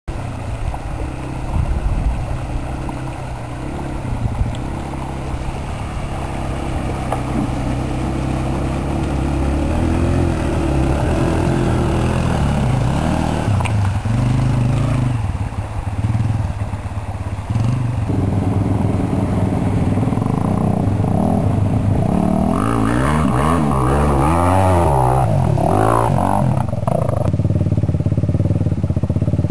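Honda CRF250X dirt bike's single-cylinder four-stroke engine running, then revving up and down repeatedly in the second half.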